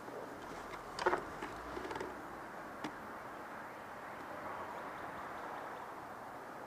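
Steady outdoor background hiss, with a short cluster of clicks and rustling about a second in and single clicks near two and three seconds in, from a player handling his rifle and gear.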